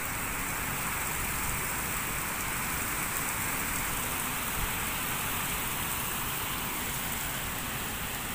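Steady rain falling on wet grass, mud and puddles: an even, unbroken hiss.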